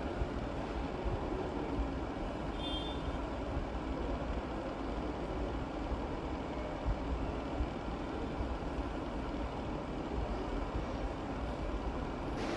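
Steady low rumbling background hum, with a few soft knife taps on a plastic cutting board as a tomato is cut into wedges.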